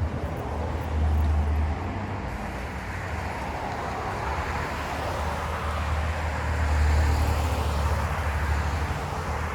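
Road traffic going by, a steady rush of passing cars that swells about two-thirds of the way through as a vehicle passes close.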